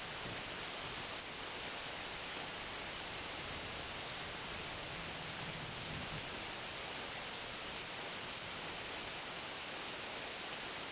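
Steady rainfall, an even hiss of many drops with no single strikes standing out.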